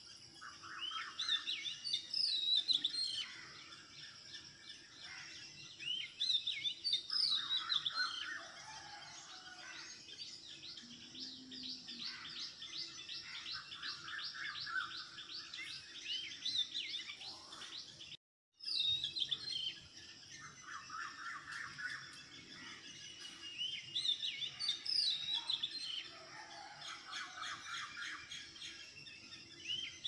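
Many small birds chirping and twittering continuously in quick, overlapping calls. The sound cuts out completely for about half a second a little past halfway, then resumes.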